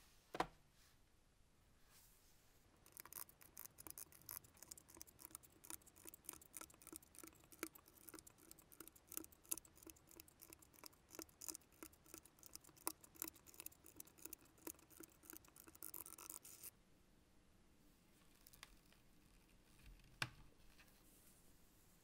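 Plastic keycaps being pressed onto the exposed switch stems of a SteelSeries Apex Pro TKL mechanical keyboard: a quick, uneven run of small clicks and taps lasting about fourteen seconds. A single knock comes shortly after the start and another near the end.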